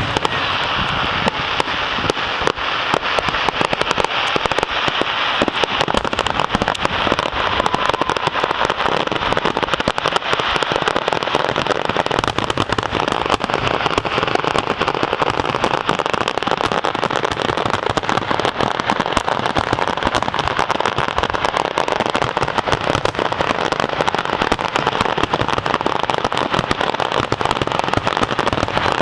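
Fireworks grand finale: a dense, unbroken barrage of bangs and crackles, shells going off many times a second with no let-up.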